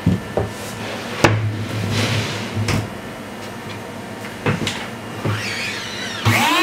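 A large plastic cutting board being turned over and set down on a wooden workbench: a series of sharp knocks and thuds with some scraping between them. Near the end a rising whine sets in and holds steady.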